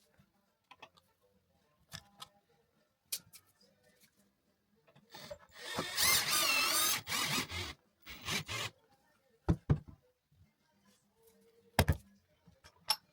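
Power drill driving a screw for about two seconds, its whine wavering in pitch, among scattered clicks and a few knocks of tools being handled.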